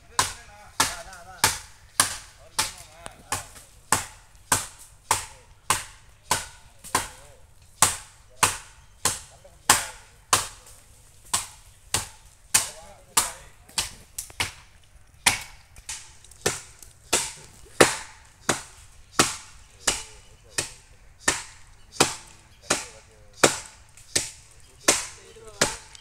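Steady, even chopping: a blade striking wood about one and a half to two times a second, each blow sharp and short.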